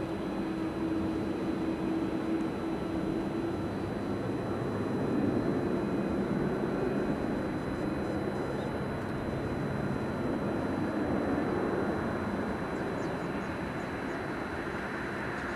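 Boeing 787-8 airliner's jet engines running at low power as it rolls along the runway after landing: a steady rushing hum with a low drone. A humming tone fades out a few seconds in.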